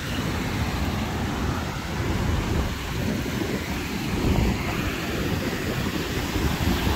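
Wind buffeting the microphone as a steady low rumble, with surf washing on the beach behind it.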